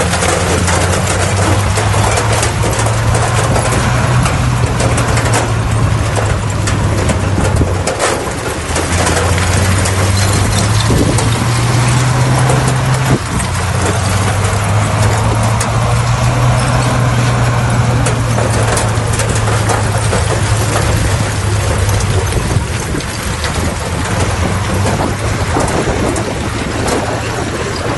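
Bulldozer's diesel engine running hard under load, its pitch rising and falling as it works, with two brief dips about eight and thirteen seconds in. A dense, noisy rattle runs underneath.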